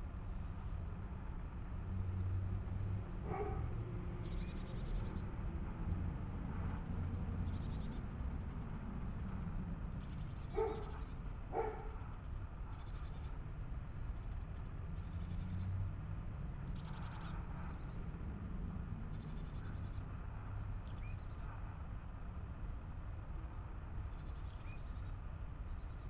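Backyard birds chirping in short, high notes over a steady low rumble. Three brief, louder, lower calls stand out: one a few seconds in and two about a second apart near the middle.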